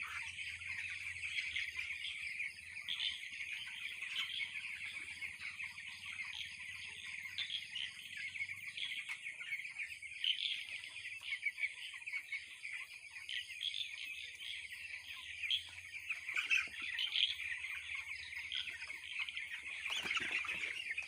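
A large flock of two-week-old broiler chickens peeping and cheeping continuously, a dense chorus of many overlapping high-pitched calls.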